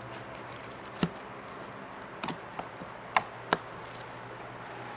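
A handful of short, sharp clicks and taps from small objects being handled and set down, about five in all, over a faint steady hum.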